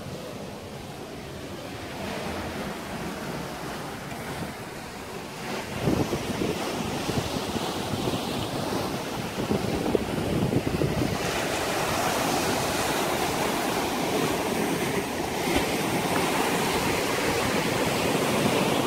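Sea waves breaking and washing over rocks at the foot of a cliff, with wind buffeting the microphone. The surf gets louder about six seconds in.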